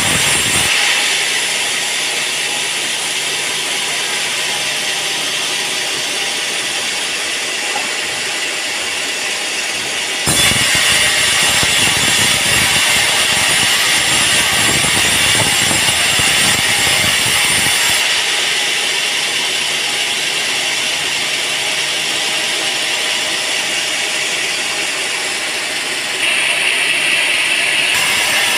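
Band sawmill running and sawing a teak log, a loud steady hiss. The sound shifts abruptly a few times, with a louder stretch carrying a heavier low rumble from about 10 to 18 seconds in.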